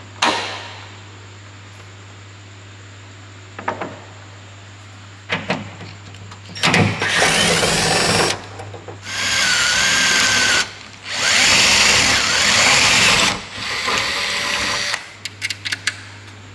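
Cordless drill running in four bursts of one to two and a half seconds each, drilling through the bolt hole in the boot lid into the newly fitted boot lip. A sharp knock comes right at the start and a few light clicks near the end.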